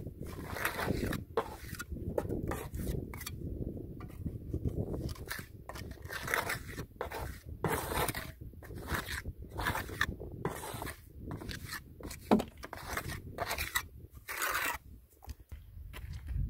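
Small trowel scraping wet cement mortar against a concrete wall, packing and smoothing it in many short, irregular strokes, over a low background rumble.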